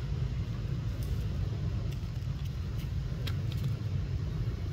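A steady low rumble, with a few faint clicks about three seconds in.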